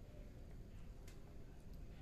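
Faint, near-quiet room tone with a low rumble, broken by one short click about a second in.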